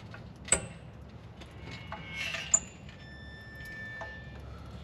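Hydraulic trolley jack being let down under a Mazda MX-5 Mk1: two sharp clicks about two seconds apart, with a short rustle and a faint steady high squeal between them as the car's weight comes down.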